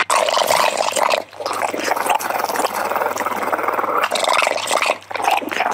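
Small flat-faced dog vocalizing close up in long rough, rattling runs, broken by short pauses about a second in and again near the four- and five-second marks.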